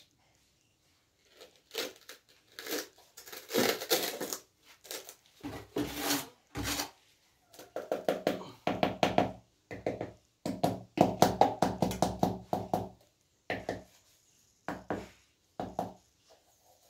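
Mason's trowel scraping and patting soft mortar around a plastic shower drain body set into a tiled floor: a run of short, gritty strokes that come thick and fast in the middle.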